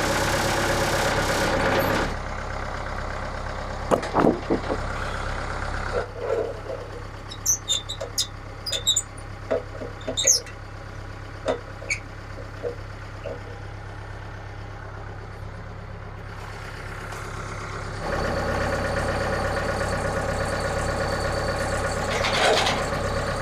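An engine running, dropping to a lower, quieter idle about two seconds in and speeding up again near the end, with scattered clunks and knocks in between.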